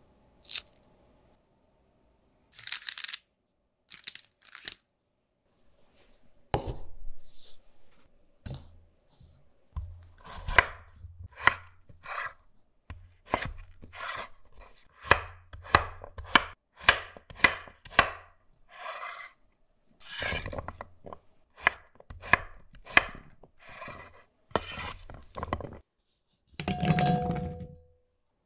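Chef's knife cutting a peeled raw potato into small chunks on a bamboo cutting board: a run of sharp chops, several a second, each ending in the blade knocking on the wood. Near the end comes a longer clatter with a brief ringing tone, as the cut pieces go into a bowl.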